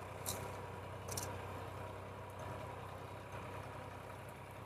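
Sonalika DI 35 tractor's diesel engine running steadily and faintly as it pulls a two-bottom reversible mouldboard plough through the soil, with two light ticks about a second apart near the start. It runs unlaboured, which the owner takes as the tractor carrying no load from the plough.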